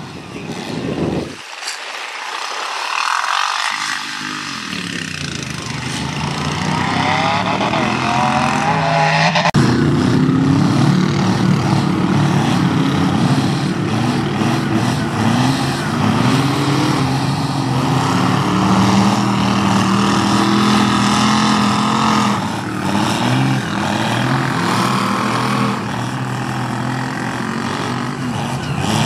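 Mud-bog truck's engine revving hard, its pitch climbing and falling again and again. The low end drops out briefly about a second and a half in, and the sound changes abruptly about nine and a half seconds in.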